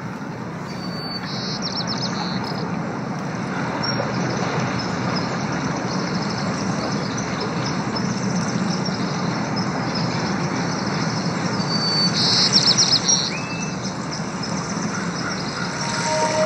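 Ambient ocean soundscape: a steady rushing wash of noise that swells in over the first couple of seconds, with bursts of bird chirping about a second in and again about twelve seconds in.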